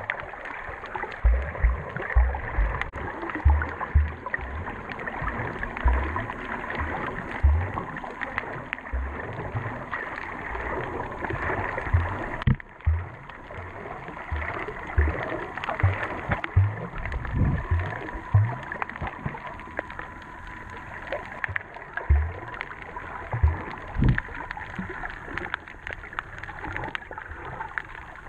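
Muffled underwater sound through a GoPro Session's waterproof body: a steady wash of water noise with irregular low thumps from the swimmer's movement.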